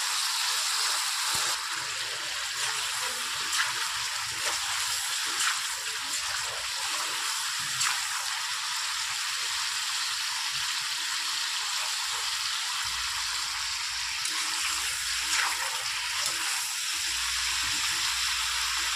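Chicken pieces frying in hot oil in a kadai: a steady sizzle with occasional small pops and crackles.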